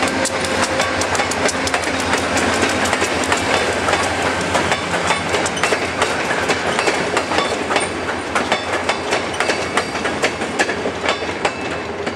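Amtrak passenger train cars rolling past close by, their steel wheels clicking over rail joints in a rapid clickety-clack over steady rolling rumble. It eases off slightly near the end as the last car clears.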